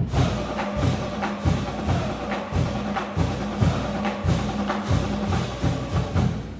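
Background music with a driving percussion beat and a steady bass line, fading out near the end.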